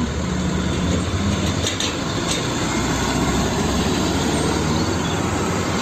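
A Hino fuel tanker truck's diesel engine running as the truck drives close past, a steady engine hum under road noise.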